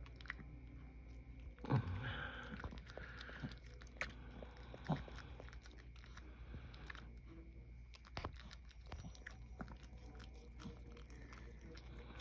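Mother dog licking and chewing at a newborn puppy still in its birth sac: wet smacking and clicking throughout, louder for about a second around two seconds in.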